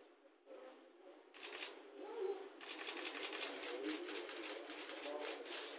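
Rapid runs of camera shutters clicking, several a second, over low voices. A short run comes about a second in, and a longer, denser run starts about halfway through.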